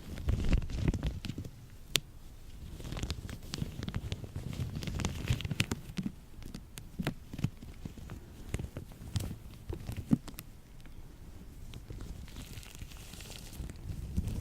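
Lotion-coated latex gloves rubbing and pressing together, giving irregular sticky clicks and crackles over a low rubbing.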